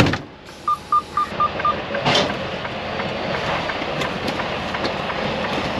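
A truck cab door shutting with a thud, then five quick electronic beeps from the dashboard chime of a Freightliner Cascadia, over the steady idle of its diesel engine. A short burst of noise comes about two seconds in.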